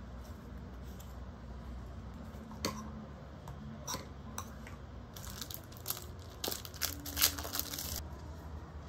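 Clear plastic packaging crinkling and rustling as a phone case is handled and pulled from its bag, mostly from about five to eight seconds in. Before that, a few light clicks and taps of small objects being handled on a desk.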